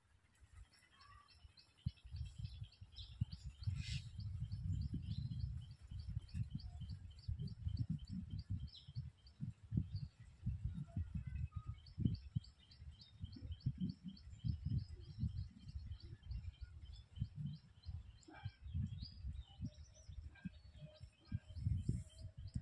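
A bird calls in a rapid, regular series of short high chirps, about three a second, pausing for a couple of seconds about ten seconds in. Beneath it, irregular low rumbling comes and goes.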